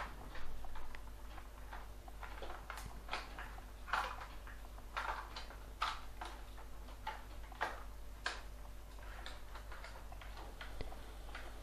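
Plastic case panels of an Acer 3680 laptop clicking and snapping irregularly as fingers pry at the seams. The two sections will not come apart because a screw is still holding them together.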